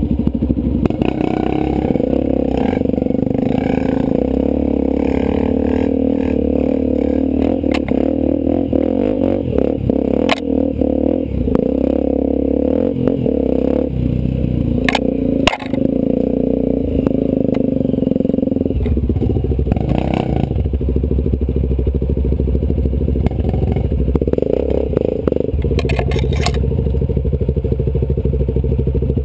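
Off-road motorcycle engine running on a trail ride, its pitch rising and falling as the rider works the throttle, with a clear change of engine note about two-thirds of the way through. Scattered knocks and clatter come from the bike going over rough ground.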